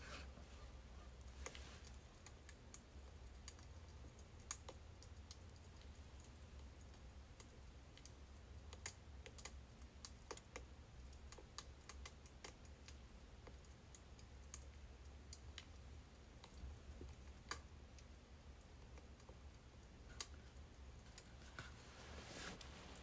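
Faint crackling of burning birch logs: irregular sharp pops and ticks over a low steady hum.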